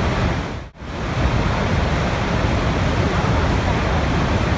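Steady rushing water, a dense even hiss with a low rumble, that drops out for a split second just under a second in.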